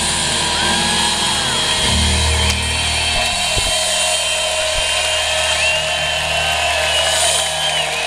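Arena crowd cheering, with many shrill finger whistles that rise and fall. A low note from the band is held steady underneath as the song ends.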